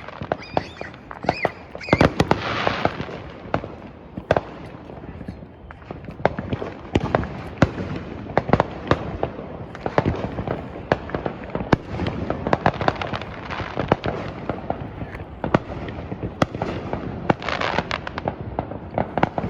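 Fireworks going off in a dense, irregular barrage of sharp bangs and pops, with bursts of crackling about two seconds in and again near the end.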